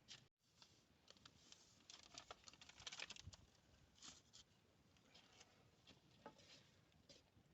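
Faint, scattered scraping and tapping of a stirring stick against a cooking pot as thick maize-flour porridge is stirred, busiest about two to three and a half seconds in.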